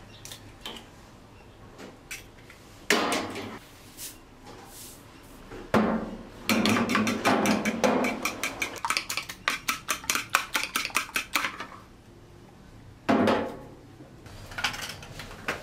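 A fork beating eggs in a plastic bowl, a quick, rhythmic run of clicking strokes against the bowl from about six to eleven seconds in, about five a second. A few sharp knocks come before it, and one more knock near the end.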